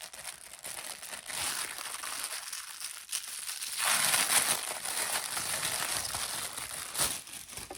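Packaging crinkling and rustling as it is handled and worked loose, loudest about four seconds in, with a sharp click near the end.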